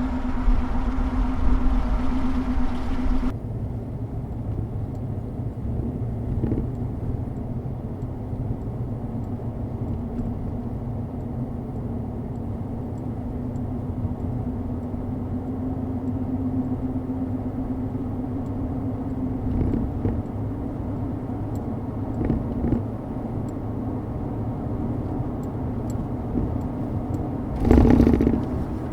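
Car driving at road speed, heard from inside the cabin: a steady low rumble of tyres and engine with a constant hum. It is louder for the first three seconds, then drops off suddenly, with a brief louder burst near the end.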